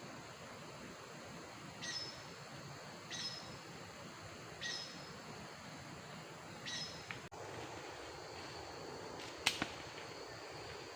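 An unseen animal giving short, high chirping calls, four of them spaced one to two seconds apart, over a steady outdoor hiss. About seven seconds in, the background changes abruptly, and there is a single sharp click near the end.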